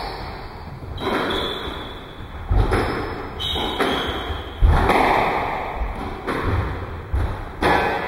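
Squash rally: a hard ball is struck by rackets and hits the court walls roughly once a second, and each hit rings in the enclosed court. Shoes squeak briefly on the wooden floor as the players move, about a second in and again in the middle.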